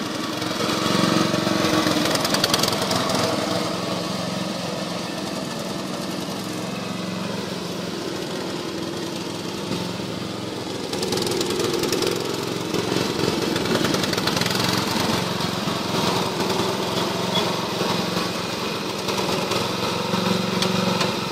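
Lawn mower engine running steadily, growing louder about a second in and again about halfway through.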